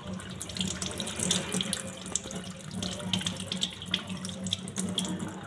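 Tap water running into a sink while fresh ginger root is rinsed clean under it, with irregular splashes.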